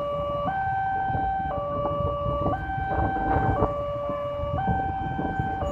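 Railway level-crossing warning alarm sounding an electronic two-tone signal that alternates between a lower and a higher tone about once a second, as the crossing barrier lifts. Under it is the low rumble of waiting motorcycle and car engines.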